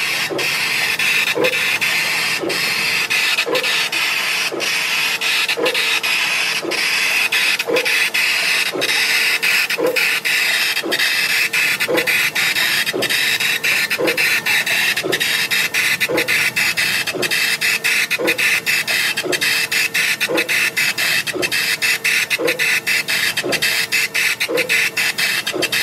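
K40 (Chinese 40 W) laser cutter cutting, a short motor tone repeating about once a second as the head traces the cut, over a steady hiss with frequent light clicks. The Pawfly MC-3000 aquarium air pump feeding the air assist runs quietly, blowing away smoke and keeping the flames down.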